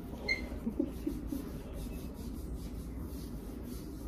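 Light rubbing and handling sounds, with a few soft knocks and one short high chirp about a third of a second in, over a steady low hum.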